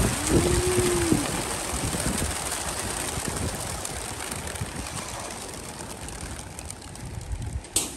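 Rushing flap of many racing pigeons' wings as a released flock pours out of a transport trailer, fading as the birds fly off. A sharp knock sounds near the end.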